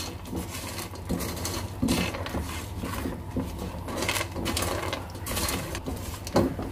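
A spatula stirring peanuts through crystallised, sandy sugar in a pan: repeated scraping strokes with the nuts rattling and shuffling against the pan. The sugar has dried to a grainy coating and is beginning to melt again into caramel.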